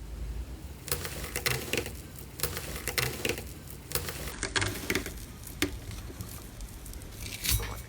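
Slime being squished and worked by hand, giving an irregular run of small sticky pops and clicks over a low rumble.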